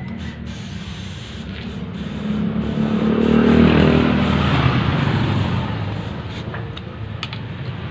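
Compressed air from an inflator hose with a gauge hissing into a tubeless motorcycle tyre through its valve, over a steady low hum. The sound swells about halfway through and then eases. The tyre is being pumped up so that its leak can be found.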